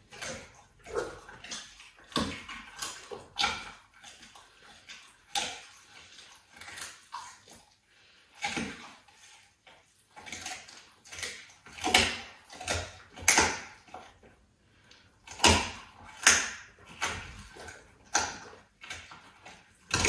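A leopard chewing and tearing at a chunk of raw meat, an irregular run of short sharp bites and smacks, the loudest a little past the middle.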